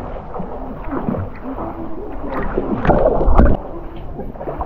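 Water sloshing and gurgling against a camera held at the surface while swimming, with a louder splash about three seconds in that cuts off suddenly.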